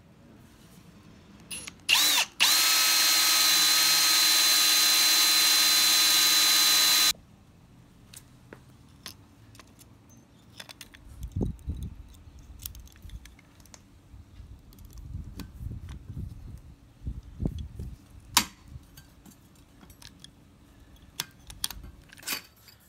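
Cordless drill boring a hole through square steel tube for a 3.2 mm pop rivet: a short blip of the trigger, then about five seconds of steady drilling with a high motor whine that cuts off sharply. Light metal clicks and knocks follow as the tube is handled.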